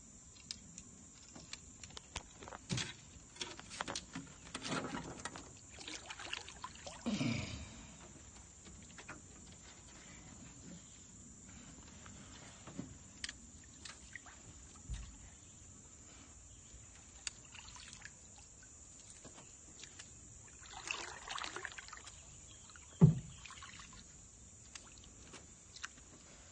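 Steady high drone of crickets, with scattered small knocks and water sounds around a small fishing boat, and one sharper thump about 23 seconds in.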